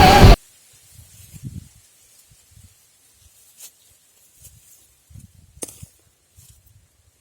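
Music stops abruptly a moment in. What follows is near quiet, broken only by faint scattered rustles and a few soft clicks.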